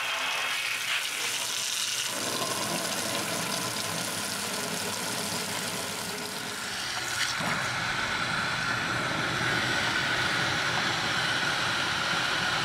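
Water from a hose spraying into a metal washing-machine tub and filling it. The sound changes about two seconds in and again about seven seconds in, settling into a steadier rush.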